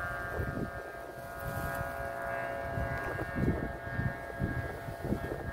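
Kite flutes on kites flying in strong wind, sounding a steady drone of several overlapping pitches held together like a chord. Gusts of wind rumble on the microphone underneath.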